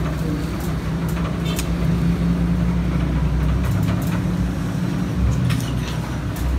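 A steady low machine hum, with a few light clicks about a second and a half in and near the end.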